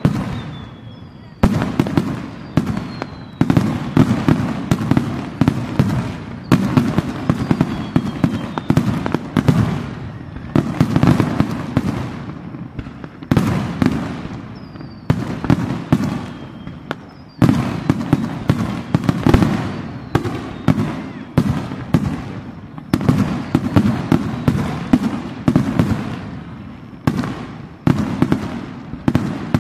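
Aerial fireworks display: shells bursting in rapid, overlapping succession, a dense run of sharp bangs and crackles over a continuous low rumble, with a few thin whistles now and then.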